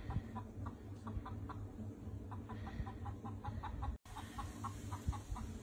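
A chicken clucking in a quick, steady run of short calls, about five a second, over a low rumble. The sound cuts out for an instant about four seconds in.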